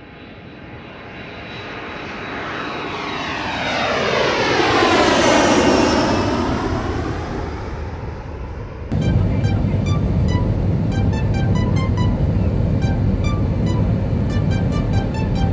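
Airplane passing low overhead: its engine sound swells to a peak about five seconds in, then fades with a falling pitch. About nine seconds in it cuts off to background music with a steady beat.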